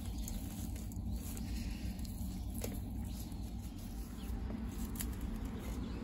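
Faint wet rustling and squishing of seasoned napa cabbage kimchi handled with a rubber-gloved hand, a few small crackles, over a steady low rumble.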